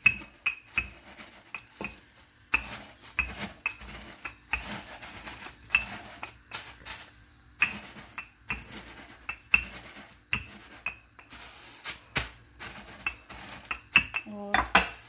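A wooden rolling pin pressed and rolled over digestive biscuits in a plastic bag on a countertop, crushing them into crumbs. It makes a series of sharp, irregular knocks and crackles.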